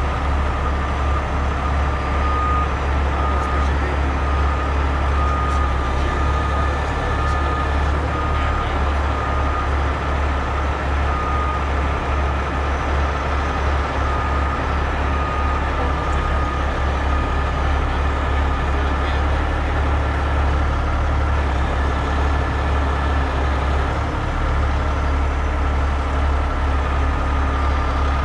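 Heavy-duty rotator tow truck's diesel engine running steadily, with a constant high whine over it.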